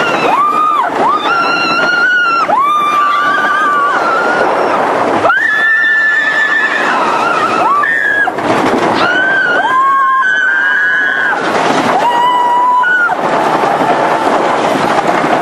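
Riders screaming and whooping again and again on a wooden roller coaster: about ten high, held yells over the steady rush of wind and the rumble of the train on the wooden track. The yells stop near the end.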